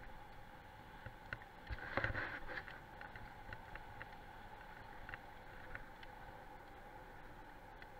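Wheels of a rig pulled by a team of sled dogs rolling on a gravel road: a steady rolling hum and crunch with scattered small clicks, and a brief rattle about two seconds in.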